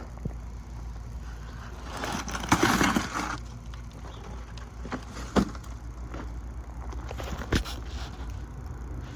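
Soil and potato plants being dug and pulled out of a grow box by hand: a loud rustling scrape about two seconds in, then a couple of sharp knocks.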